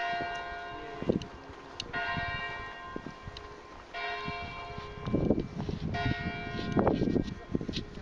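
Church bell tolling: four strokes about two seconds apart, each ringing on and fading. From about five seconds in, scuffing, thudding noise close by grows louder than the bell.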